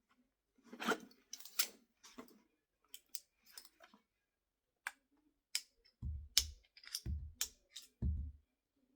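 Tools and plastic packaging being handled: scattered sharp clicks and rustles, then three dull thumps about a second apart near the end.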